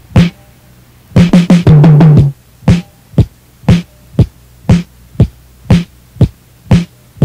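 Drums opening a rock song: a single hit, then a quick fill of rapid strikes, then a steady beat of about two hits a second.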